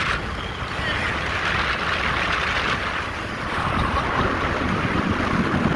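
A motorboat under way on calm water: a steady rush of wind and water, with wind buffeting the microphone.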